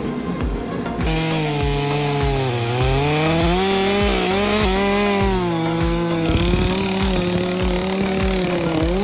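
Two-stroke chainsaw cutting wood, starting about a second in. Its engine note dips as the chain bogs down in the cut and climbs back again, over a steady low thumping beat.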